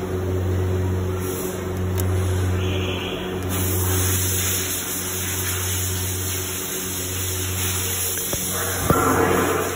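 Small electric motor of a remote-controlled rotating LED searchlight humming as it turns the lamp head, starting and stopping in spells of about one to two seconds. A short clatter comes near the end.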